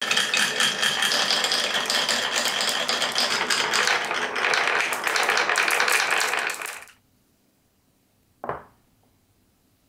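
Glass marbles rolling and clattering along a wooden marble-run track, a dense rattle of clicks and ringing glass taps that stops abruptly about seven seconds in. A single wooden knock follows as a block is set down on the course.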